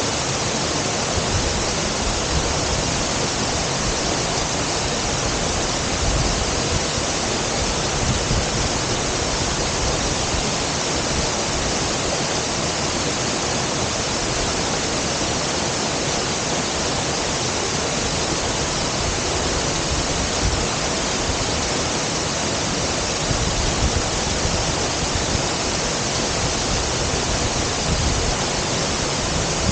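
Waterfall's falling water rushing steadily, with a few brief low rumbles.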